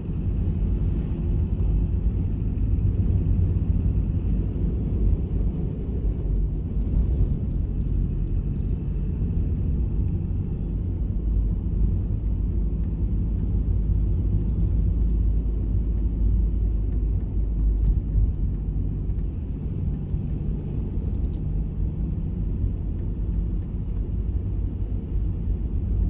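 Car driving along a wet road, heard from inside the cabin: a steady low rumble of engine and tyres on wet tarmac, with a faint hiss.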